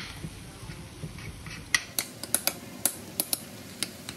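A metal spoon clinking and scraping against a skillet as browning ground beef is stirred: about eight sharp, irregular clinks, most of them in the second half, over a steady sizzle of the meat.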